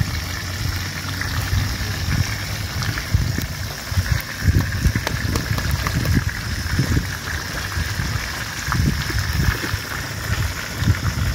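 Open wood fire crackling and hissing under a frying pan of fish, with a whole fish roasting directly on the embers; sticks scrape and knock as the fire is poked. Irregular low rumbling runs underneath.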